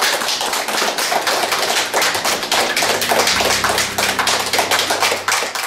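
Small audience applauding: many hands clapping unevenly and steadily.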